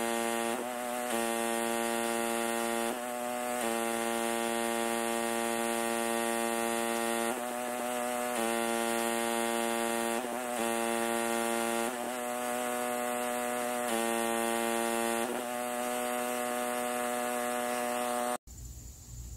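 Pressure washer running with a steady, loud hum. Its pitch wavers briefly every few seconds, and it cuts off suddenly near the end.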